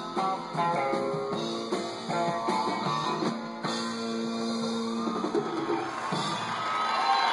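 Live country band music played from a vinyl LP, with guitars strumming and picking over drums. Near the end the playing gives way to a rising crowd cheer with whoops.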